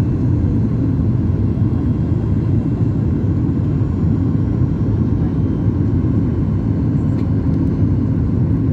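Cabin noise of a Boeing 737 MAX 8 airliner heard from a window seat: a steady, loud, low rumble of the engines and airflow that holds even throughout.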